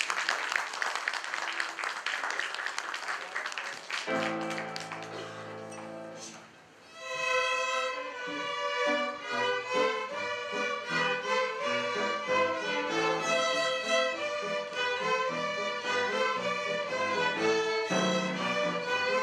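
A violin ensemble with piano accompaniment. For the first few seconds there is a dense, clattering noise; then a low chord is held and fades. From about seven seconds in, the violins play a melody together over the piano.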